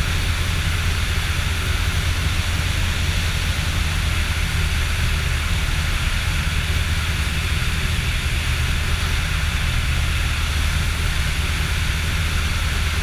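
Steady drone of a motor glider's engine with airflow hiss, heard inside the cockpit on the landing approach.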